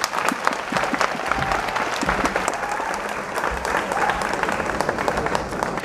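A large crowd applauding: dense, steady clapping that follows the end of a speech.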